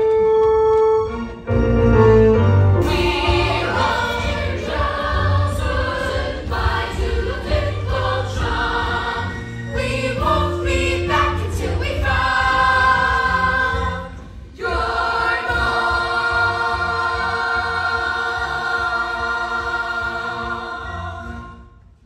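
A young cast singing together in a musical-theatre number with instrumental accompaniment. Near the end there is a brief break, then the voices hold one long final chord that fades out just before the end.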